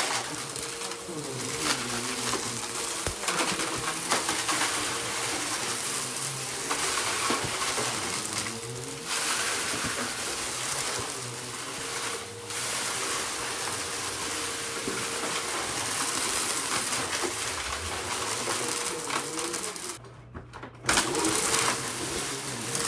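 Bagless upright vacuum cleaner running on a carpet rug, sucking up a scattered dry debris mix with a steady motor whine and crackly crunching as bits rattle up into the bin. Its pitch dips and rises with each push and pull. The sound drops briefly about twenty seconds in, then comes back loud.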